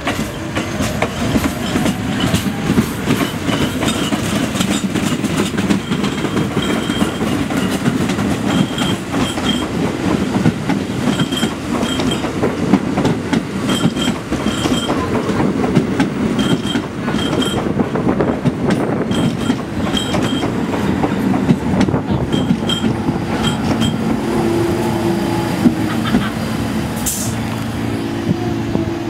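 Pullman Standard R46 subway train rolling into an elevated station: a loud, dense rumble of steel wheels on rail with regular paired clicks every second or two, the clickety-clack of wheels over rail joints. Near the end the clatter eases and a steady low hum sets in as the train draws to a stop.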